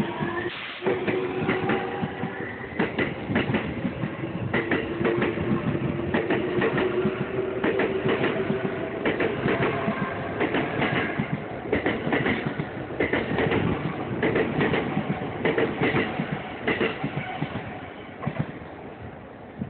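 Electric commuter train pulling out and passing close by, its wheels clattering in quick clusters over rail joints and points, with a steady whine through the first half. The clatter thins out near the end as the last car clears.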